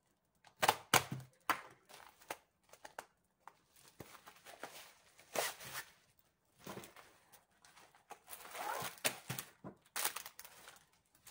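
Rustling and crinkling of the white wrapping on a rolled diamond-painting canvas as it is handled and laid on the table, in irregular bursts with a few light knocks.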